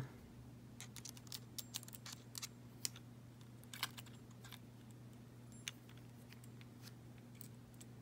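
Light, scattered metallic clicks and taps as a Gomexus power knob and its small bearings are worked onto the handle arm of a Shimano Stradic FL spinning reel. The clicks come mostly in the first half, over a steady low hum.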